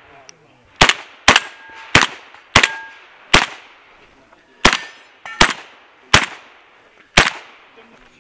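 Nine shots from a semi-automatic AK-pattern 12-gauge shotgun fired in quick succession, roughly half a second to a second apart, with a longer pause after the fifth. Each shot is loud and sharp with a short echo.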